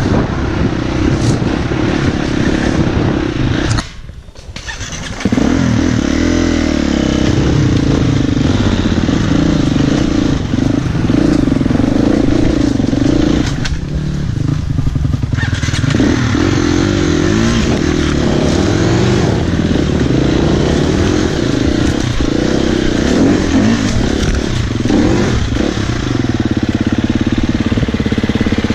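Husqvarna FE 250 four-stroke single-cylinder enduro engine under load on a rocky climb, revs rising and falling with the throttle. About four seconds in the sound drops away for about a second, then comes back sharply.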